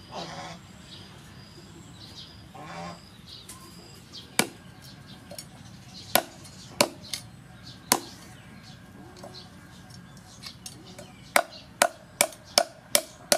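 Cleaver chopping on a wooden chopping board while trimming the fins of a whole fish: single sharp chops a second or two apart, then a quick run of about five near the end. Two bird calls and some high chirping in the first three seconds.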